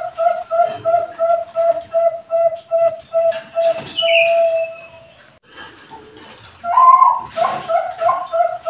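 Perkutut bangkok (zebra dove) cooing its song: a quick run of short coos, about three a second, ending in a longer held note about five seconds in. After a short pause a new phrase begins with a higher opening coo and runs on into repeated coos.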